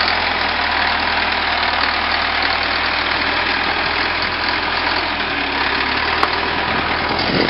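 Tractor engine running steadily, with a single sharp click about six seconds in.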